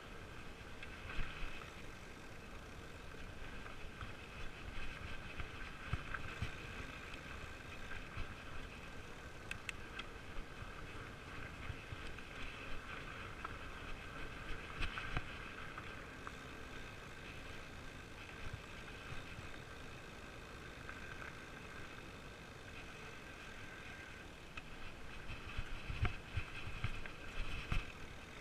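Fat bike rolling along a dirt forest trail: tyre and frame rumble with a steady high hum, and a run of bumps and knocks near the end.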